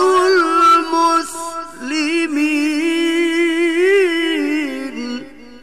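A man reciting the Quran in melodic tilawah style into a microphone, holding long ornamented notes that waver up and down. The voice stops about five seconds in.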